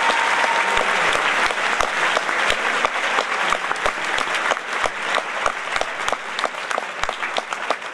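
Audience applauding: a dense, sustained mass of clapping that eases slightly toward the end.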